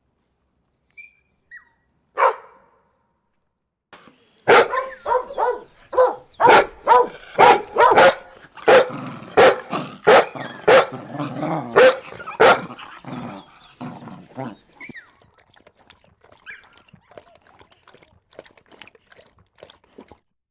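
A dog barking: one bark about two seconds in, then a steady run of about twenty barks at roughly two a second, ending after about 13 seconds and leaving only faint scattered sounds.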